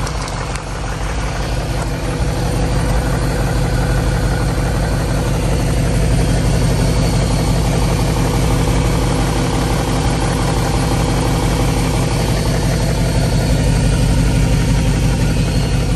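BMW X5 (E53) V8 engine idling steadily, heard from beneath the car close to the exhaust pipes and catalytic converters.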